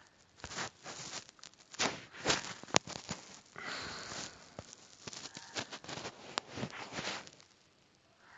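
Irregular clicks, taps and rustling close to the microphone, typical of a phone being handled and its screen tapped, stopping shortly before the end.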